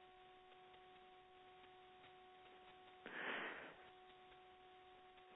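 Near silence on a conference phone line: a faint steady hum, broken about three seconds in by a brief rush of noise lasting under a second.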